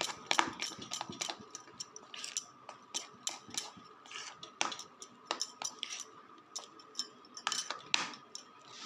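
Hand mixing a thick rice-flour batter in a plastic bowl: irregular clicks, taps and soft scrapes of fingers working the batter against the bowl.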